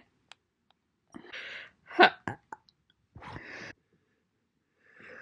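A single sharp hiccup from a woman about two seconds in, with breathing in and out before and after it.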